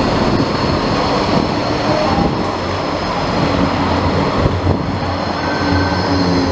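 Green articulated low-floor tram passing close by on street track: steady running noise of steel wheels on rail and the drive, with a low hum and a thin steady high whine.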